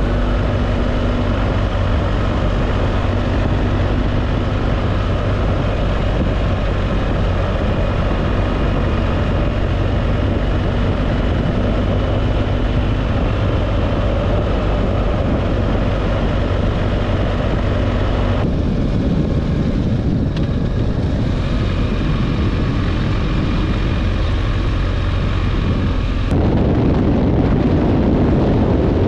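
Steady engine and road noise of a car driving, with a constant low hum. The sound changes abruptly twice, about two-thirds of the way in and again near the end, where it becomes a rougher, louder rumble.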